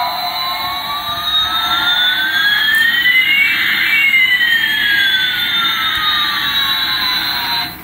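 Electronic jet-engine sound effect from a toy Airbus A380's built-in speaker: a whooshing hiss with one tone gliding steadily up while another glides down, crossing about halfway through. It cuts off abruptly near the end.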